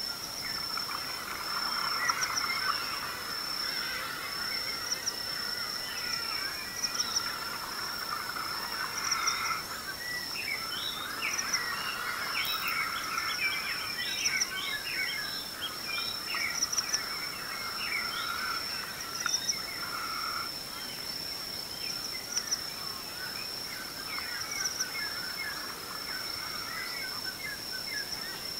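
Dawn chorus in the Tanzanian bush: many birds calling and chirping at once, the calls densest about halfway through, over a constant high-pitched whine.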